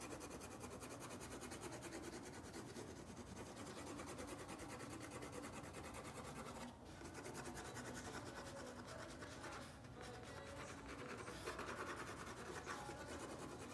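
Pen nib scratching on paper in quick, repeated strokes, hatching lines to darken the shading of a drawing, with two brief pauses.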